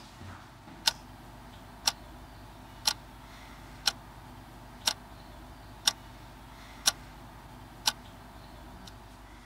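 Quartz wall clock ticking once a second: eight sharp, evenly spaced ticks over a low steady room hum.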